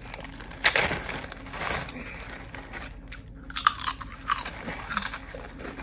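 A person chewing crunchy food close to the microphone, with about five crisp crunching bites roughly a second apart.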